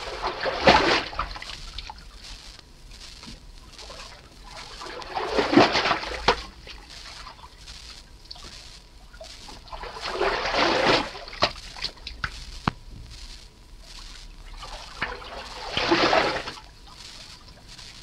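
Canoe paddle strokes in water: four pulls about five seconds apart, each rising and falling, with drips and small splashes between them.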